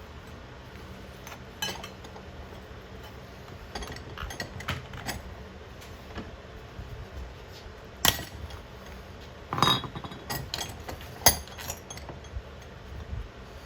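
Scattered clinks and knocks of hard metal and glass pieces being handled. Three sharper hits come roughly eight, ten and eleven seconds in, over a steady low hum.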